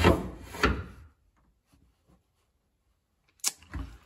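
A speed square scraping and knocking against plywood and a wooden window frame as it is set in place. The scraping stops about a second in, and a few light knocks come near the end.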